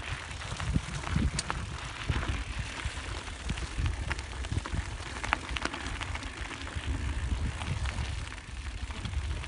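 Handcycle rolling along a rough mountain-bike trail: a steady crackling crunch of tyres on the track, with scattered clicks and rattles, over an uneven low rumble.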